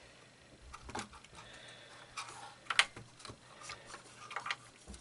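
Scattered small clicks and knocks of a hand fitting a circuit board and its ribbon wiring into an opened transistor radio's plastic cabinet, with one sharper click just past halfway.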